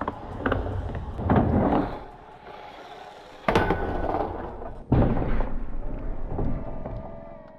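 Skateboard on a giant wooden ramp and metal rail: several loud, heavy impacts of the board landing and hitting the ramp and rail, the sharpest about three and a half and five seconds in, each trailing off into rolling noise. A thin ringing squeal with falling pitch comes near the end.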